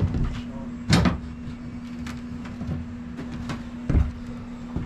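Two sharp knocks, about a second in and about four seconds in, over a steady low hum.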